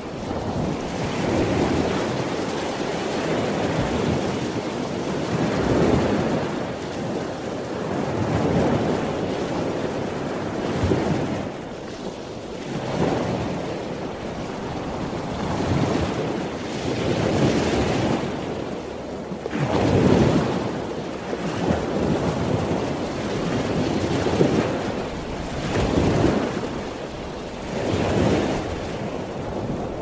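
Ocean surf breaking on a beach: a continuous rushing wash of waves that swells and eases every few seconds.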